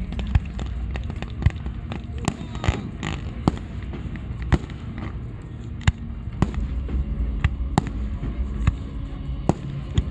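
Fireworks display going off: irregular sharp bangs and cracks, sometimes several a second, over a steady low rumble.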